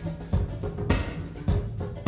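Live funk music: a drum kit keeps a steady beat, a hit a little under every 0.6 seconds.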